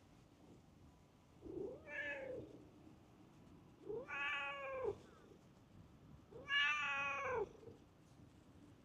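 A cat meowing three times, each a drawn-out meow of about a second with a rise and fall in pitch, spaced a couple of seconds apart. The later meows are louder.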